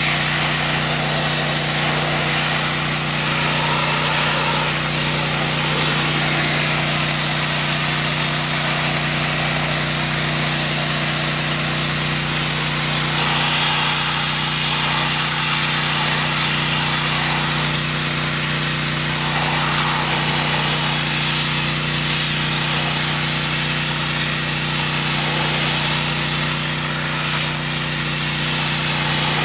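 Pressure washer running steadily, with a constant low hum under the hiss of the high-pressure water jet striking the log walls.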